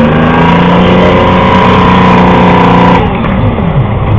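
Tracked armoured vehicle's engine revving hard under load as the vehicle drives up a bank, held high and steady, then the revs drop away about three seconds in.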